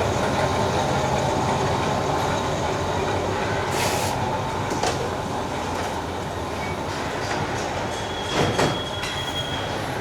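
Steady machinery din of a sewing machine factory assembly line, with a short hiss about four seconds in and a few sharp metallic clanks near the end.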